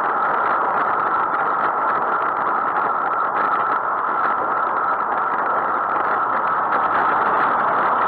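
Steady rushing noise of a bicycle ride recorded on a bike-mounted camera: wind on the microphone and road noise, with motor traffic around.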